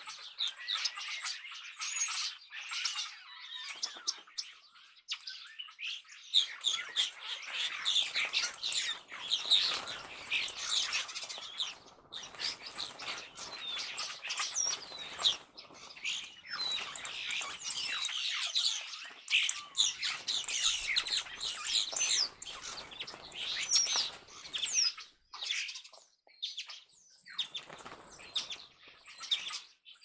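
A flock of European starlings calling together: a dense, unbroken chatter of whistles, clicks and chirps, with wings flapping as birds come and go.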